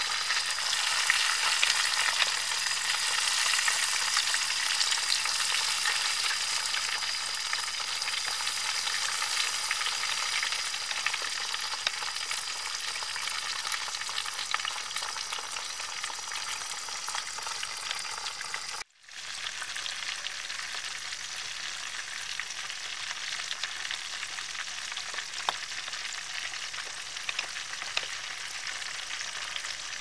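Whole chicken frying in hot oil in a steel pan: a steady sizzle with fine crackles. The sound drops out for an instant about two thirds through, then the sizzle carries on a little quieter.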